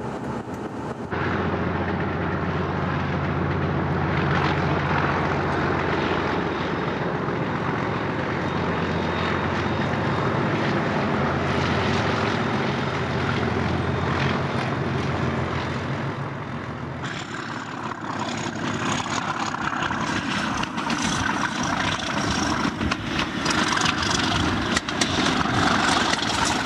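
Class 37 diesel locomotive's English Electric V12 engine running with a steady low drone. About 17 seconds in the sound changes to a noisier rattle with frequent clicks and a faint high whine, as of the moving train.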